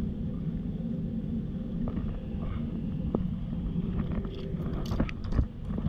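Steady low outdoor rumble. About four seconds in come several sharp knocks and clatters from a landing net's pole and fishing gear being handled.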